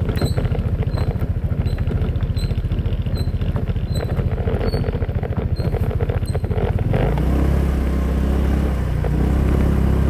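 Honda PCX scooter's single-cylinder engine running under the riders on a bumpy dirt forest track, with a fast low pulsing. About seven seconds in it turns into a steadier, deeper drone.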